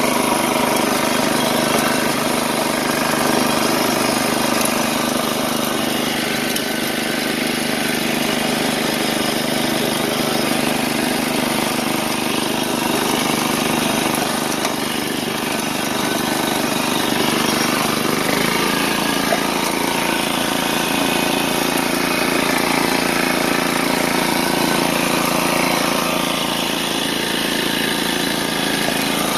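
Snowblower's 8 hp Briggs & Stratton Intek engine running steadily at speed while the machine throws snow out of its chute.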